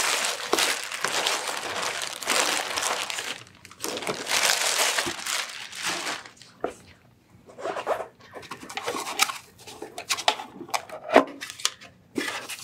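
Clear plastic packaging bag crinkling and rustling in long stretches as the record cleaning machine is pulled out of it, then shorter rustles and a few sharp knocks, the loudest about 11 seconds in, as the packing pieces are handled.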